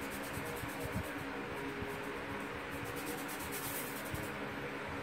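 Steady background hiss with a faint low hum, and a few soft knocks.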